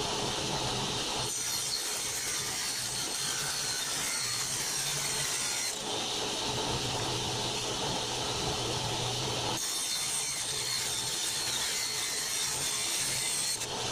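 Table saw running and ripping strips from a sheet of aluminum, a continuous cutting noise over a steady motor hum. The sound changes with each pass, about every four seconds.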